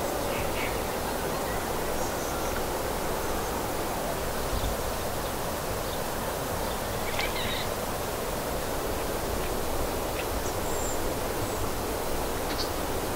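Riverside morning ambience: a steady even hiss, with short faint bird chirps scattered through it.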